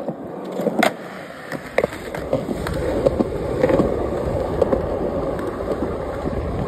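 Skateboard on concrete: a sharp clack about a second in as the board is put down, then the wheels rolling with a steady, rising rumble and small clicks as the skater pushes off.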